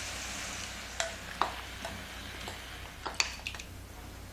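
Hot frying pan sizzling as chili seasoning sauce is poured over the tofu, the hiss easing off through the first second. Then a spoon scraping the sauce out of a glass bowl, with several sharp clicks of the spoon against the bowl.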